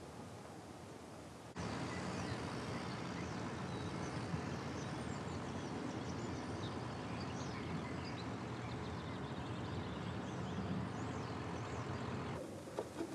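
Open-country ambience: a steady low rumble with small birds chirping high and briefly above it. It comes in abruptly about a second and a half in and drops away just before the end.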